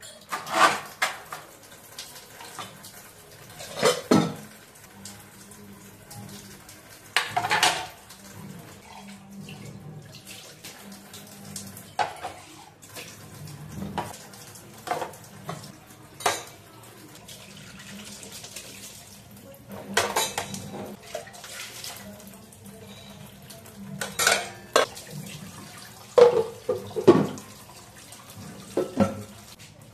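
Tap water running into a stainless steel sink while dishes are washed, with repeated sharp clinks and clatters of steel utensils, a ceramic mug and a plastic casserole lid knocking against each other and the sink. The loudest clatters come in a cluster near the end.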